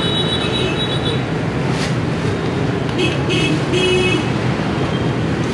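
Steady road traffic noise with vehicle horns: one horn held for about a second at the start, then a few short toots around three to four seconds in.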